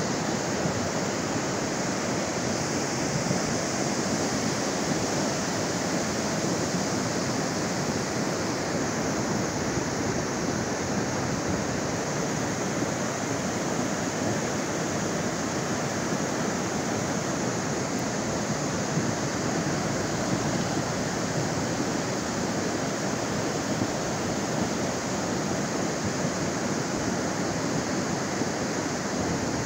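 River in flood: fast, turbulent muddy floodwater rushing past, a steady, even rushing noise with no change throughout.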